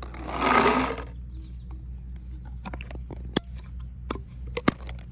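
Tippmann Stormer paintball marker firing single shots: two sharp pops about a second and a half apart in the middle, among lighter clicks. A loud rush of noise lasting about a second opens it.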